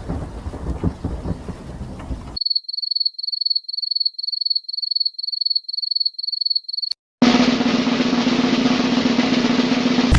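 Three sound effects in a row. Thunder and rain cut off abruptly about two seconds in. A high electronic beep then repeats about three times a second for roughly four and a half seconds, and after a brief gap a steady drum roll follows.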